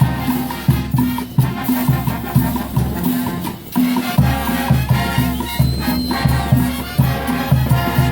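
Banda brass-band music with no singing: a bouncing tuba bass line on a quick steady beat, with brass and clarinets above it.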